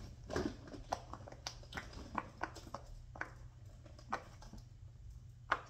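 Fidget toys being rummaged through by hand: small objects clicking and knocking together in an irregular scatter of light knocks, with one sharper knock near the end.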